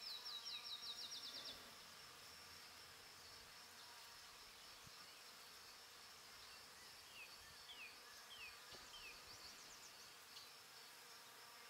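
Faint, near-silent outdoor ambience: a steady high insect buzz. A quick run of short falling chirps comes in the first second and a half, and a few scattered short falling whistles come later.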